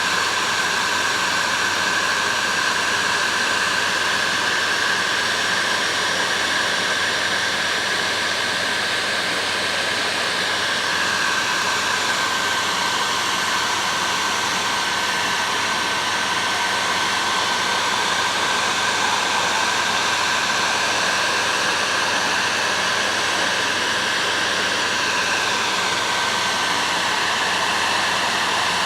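Heat gun blowing steadily while shrinking heat shrink tubing onto plier handles: an even rush of hot air with a held fan whine.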